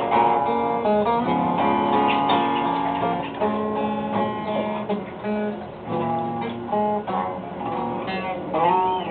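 Music played on a plucked string instrument, with a new note or chord about every half second to a second.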